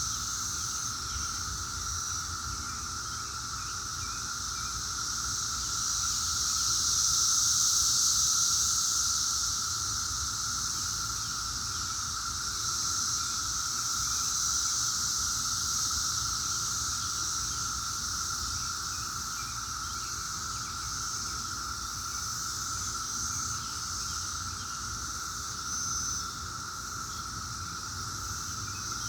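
Chorus of Brood X 17-year periodical cicadas: a steady, unbroken droning buzz that swells louder about a quarter of the way through, then settles back.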